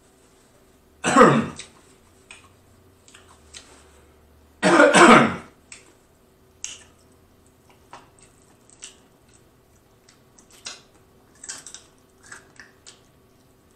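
A man clears his throat with a harsh cough twice, about a second in and again, longer, near five seconds in. After that come only small, faint clicks of chewing and lip smacks as he eats fried chicken close to the microphone.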